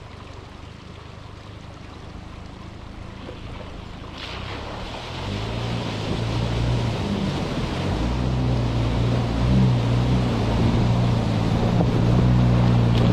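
A Jeep Wrangler fords a shallow, rocky creek, its tyres splashing through the water. Its engine hum grows steadily louder as it approaches over the sound of the moving water.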